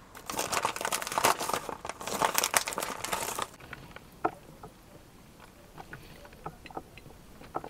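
Foil coffee bag crinkling as it is handled for about three and a half seconds, then faint scattered ticks and drips as the drip coffee maker brews into its glass carafe.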